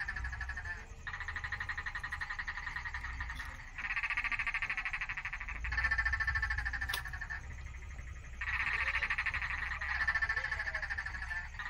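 Frogs calling in turn: fast pulsed trills, each lasting one to two seconds, one caller starting as the last stops.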